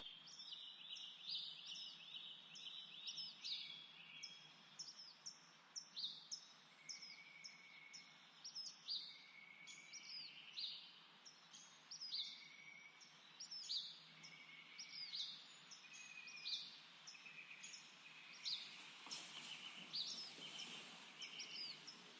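Faint birdsong: several small birds chirping in quick, repeated high notes, many of them short downward sweeps, with a few lower single notes among them.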